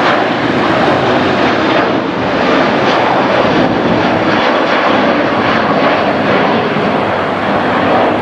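Airplane engines running loud and steady, as an airliner passes close by at the airport.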